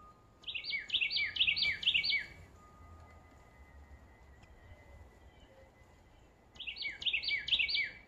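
A songbird singing two songs about four seconds apart. Each song is a quick run of five or six identical phrases, each a high note dropping to a lower slurred one, about three phrases a second.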